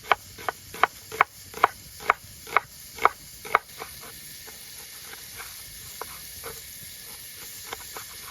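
Knife chopping on a chopping board: about two sharp knocks a second, loud for the first three and a half seconds, then fainter and more spaced out. Underneath is the steady sizzle of chicken and chorizo frying in a pan.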